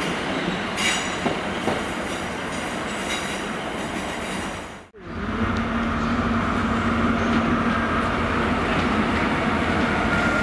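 A Northern diesel multiple unit rumbling along the rails with some high wheel squeal. After a cut about halfway through, GWR Class 43 HST power car 43027 passes with its diesel engine giving a steady low hum over the rail noise.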